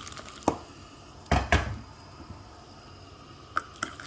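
Kitchenware knocking and clinking while coffee is being made: a sharp knock about half a second in, a heavier double thud around a second and a half, and two light clicks near the end.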